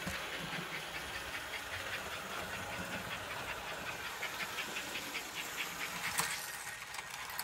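American Flyer 293 S-gauge steam locomotive running on the layout track: a steady hiss with a fast, even clicking of its running gear and wheels on the rails.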